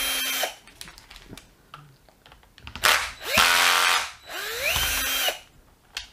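Cordless drill-driver running in three short bursts, each motor whine rising as it spins up and then holding steady, as it backs screws out of a drill's plastic clamshell housing. The first run stops about half a second in and the other two come about three and four and a half seconds in.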